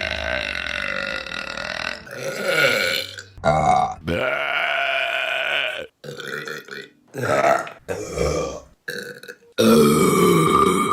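A run of women's burps cut one after another: long, drawn-out belches of about two seconds alternate with short ones, with a quick cluster of short burps in the second half and another long belch near the end.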